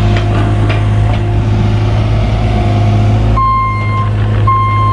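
Cat 303 mini excavator's diesel engine running steadily under load. From about three and a half seconds in, its travel alarm starts beeping in long, evenly spaced beeps, about one a second, as the machine moves on its tracks.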